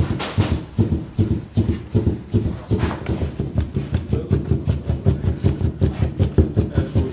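Rapid, rhythmic chopping of meat and fat with a heavy zırh knife on a chopping board: dull knocks about four to five a second, keeping up an even pace, as the meat is hand-minced for Adana kebab.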